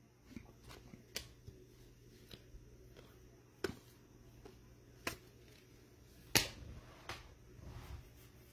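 Glossy Select football trading cards being flipped through and handled: a handful of separate sharp clicks and snaps as cards are slid and tapped, the loudest a little past the middle, with a soft shuffle of card stock near the end.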